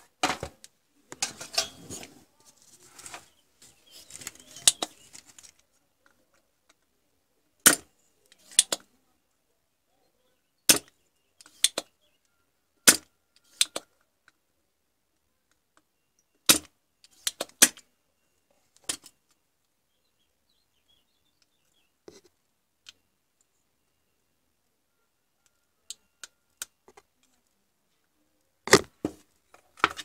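Sharp snapping clicks, one or two at a time every few seconds, from a spring-loaded desoldering pump being cocked and fired while parts are desoldered from an LCD monitor's power-supply board. Rustling of handling fills the first few seconds.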